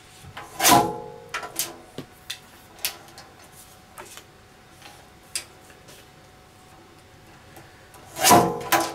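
Lever-arm guillotine paper trimmer cutting through printed sheets twice, about a second in and near the end: each cut a sharp swish with a short metallic ring. Lighter clicks and taps come between as the paper is handled and lined up.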